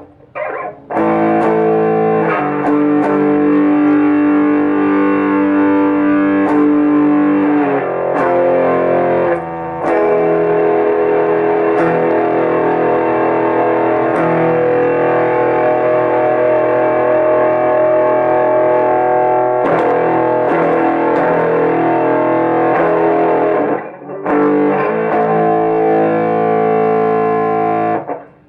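Electric guitar played in held chords through an Ampeg tube amplifier head, with channel 1's built-in distortion circuit switched in. It gives a fuzzy, clipped tone that the player calls "a volume cut with fuzz". The playing breaks off briefly a few times.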